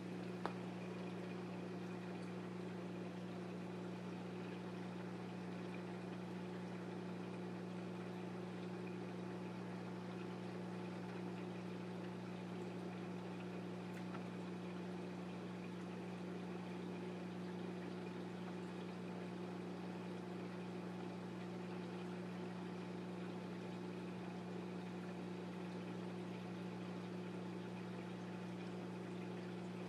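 Steady hum of a reef aquarium's pumps and water circulation, a constant low drone with a hiss of moving water. A single brief click comes about half a second in.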